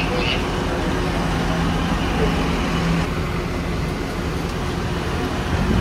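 Steady low rumble of engines on an airport apron beside a parked apron bus, with a faint steady hum.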